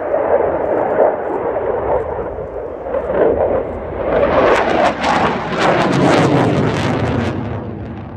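Saab JAS 39 Gripen single-engine fighter jet passing overhead: loud jet engine noise that turns into a harsh, crackling blast from about four seconds in, then fades away near the end.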